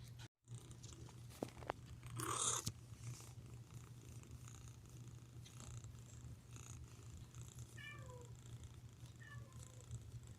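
Domestic cat purring steadily, with a brief rustling noise about two seconds in.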